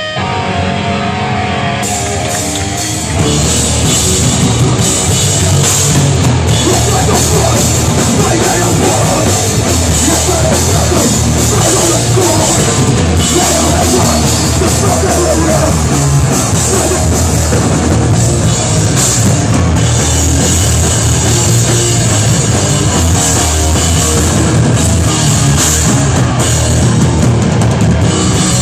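A live hardcore band plays loud, fast music in a small, crowded room. Electric guitar carries the first few seconds, then the drums and full band come in about three seconds in and keep going, dense and heavy.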